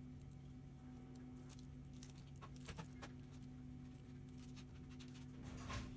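Faint scattered clicks and light taps from a laptop LCD panel being handled and pressed into place in the lid, over a steady low electrical hum.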